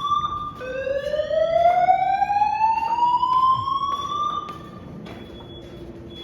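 Building fire alarm sounding a slow, rising whoop: each sweep climbs in pitch for about four seconds. The tone cuts off about four and a half seconds in, leaving only a faint steady high tone.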